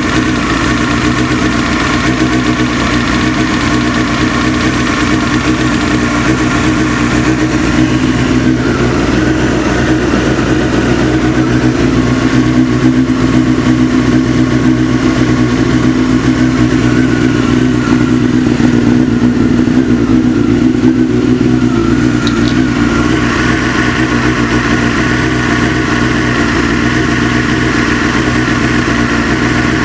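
Engine idling as it warms up, with a knock that the owner says grows quieter the warmer the engine gets.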